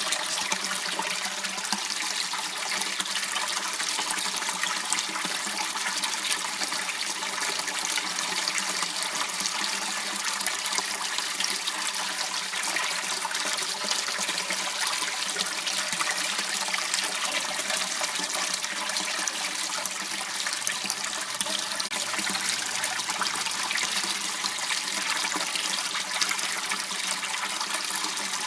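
Water running steadily in a small waterway, a continuous rushing trickle that doesn't change.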